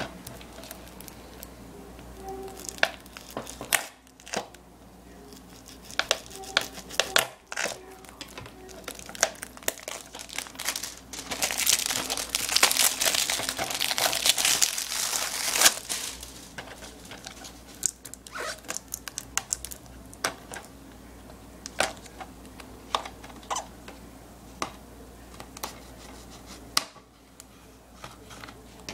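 Plastic shrink wrap crinkling and tearing as it is peeled off a DVD case by hand, with scattered clicks and taps from handling the plastic case. The crinkling is loudest and densest from about 11 to 16 seconds in.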